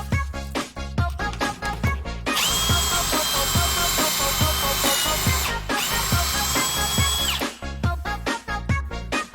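Electric power tool motor running with a steady high whine in two spells, the first about three seconds long and the second about two, with a brief stop between. Dance music with a steady beat plays underneath throughout.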